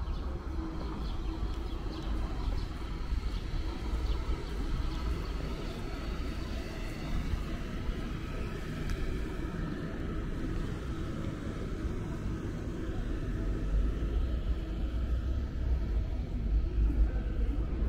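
Street ambience of road traffic: a steady low rumble that swells a little near the end.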